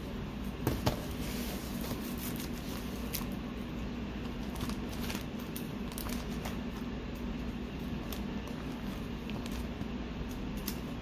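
Light clicks and rustles of a trading card in a plastic sleeve and binder pages being handled, with a couple of soft knocks about a second in, over a steady low hum.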